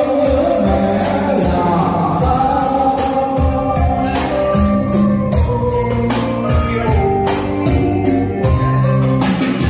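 A song with singing and a steady drum beat, played back through karaoke loudspeakers.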